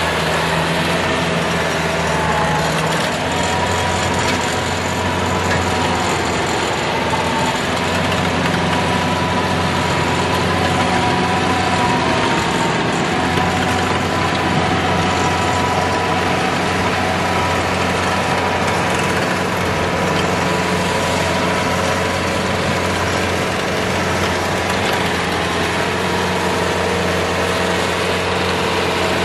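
Daedong tractor's diesel engine running steadily under load while driving a PTO rotary tiller whose blades churn through the soil, with a steady mechanical whine over the engine note.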